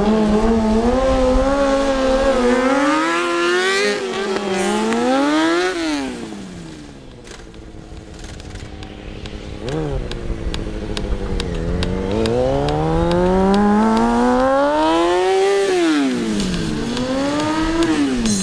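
Sport motorcycle engine revving up and falling back again and again during stunt riding, the pitch climbing and dropping in long sweeps. Around the middle it falls to a low, quieter run with a string of quick ticks, then climbs twice more.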